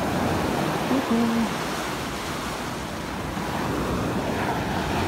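Small sea waves breaking and washing up onto a sandy beach: a steady surf hiss.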